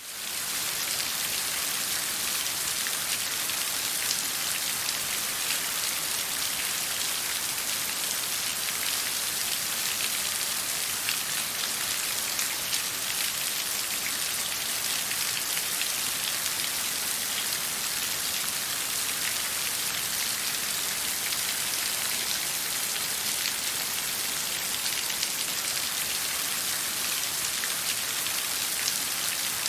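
Steady water sound: a dense, even hiss and patter of many small drops, like rain falling on a surface. It fades in right at the start and then holds level.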